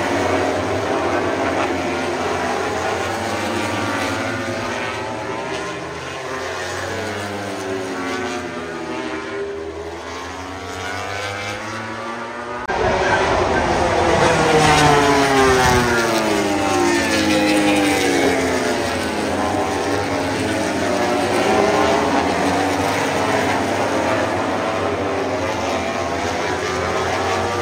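Engines droning as they pass, their pitch sweeping slowly down and up. The sound jumps suddenly louder about halfway through.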